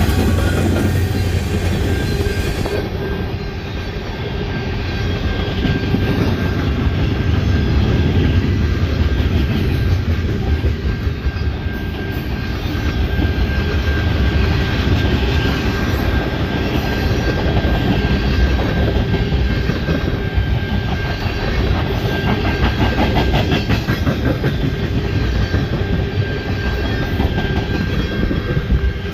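Freight cars, mostly tank cars followed by lumber-loaded flatcars and boxcars, rolling past close by: a steady rumble of steel wheels on rail with the clickety-clack of wheel trucks over rail joints. A thin, steady whine sits above the rumble.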